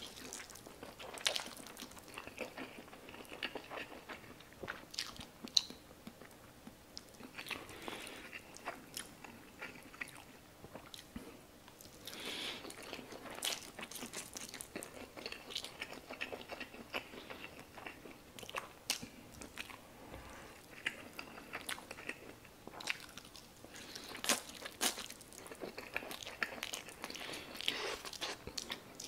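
Close-miked eating of spicy stir-fried instant noodles: slurping noodles off chopsticks and chewing, with many wet mouth clicks and smacks.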